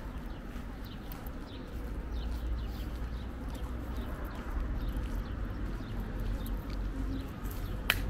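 Small birds chirping over and over, short quick downward notes, above a steady low rumble, with one sharp click near the end.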